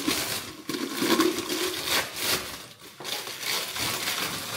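Packing paper rustling and crumpling in irregular bursts as glass storage jars are unwrapped.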